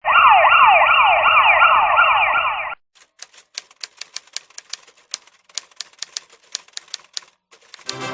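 A siren wailing in quick falling sweeps, about three a second, cutting off suddenly after almost three seconds. Then rapid, uneven typewriter key clacks for several seconds.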